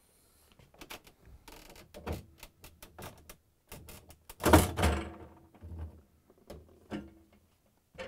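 Refrigerator freezer drawer door being lifted off its slide rails, its mounting posts released and hooks freed from the rails: a string of short clicks and knocks, with one loud clunk about halfway through.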